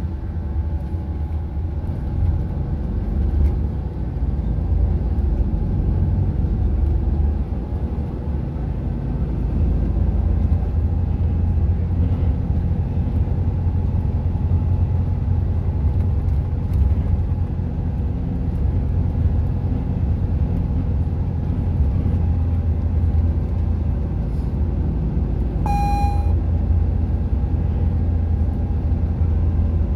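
Inside a Volvo 8900 B7RLE city bus on the move: its rear-mounted seven-litre six-cylinder diesel and the road noise make a steady low rumble. Near the end, a single short electronic chime sounds in the cabin.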